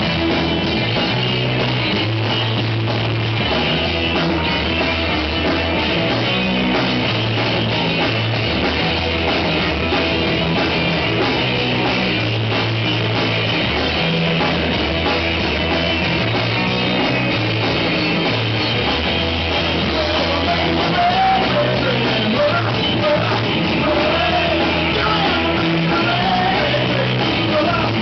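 Rock band playing loud and steady: distorted electric guitars over bass guitar and a drum kit.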